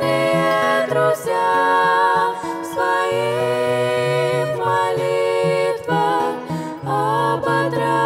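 A women's vocal trio singing a hymn in harmony in Russian, with acoustic guitar accompaniment, in long held phrases with short breaks between them.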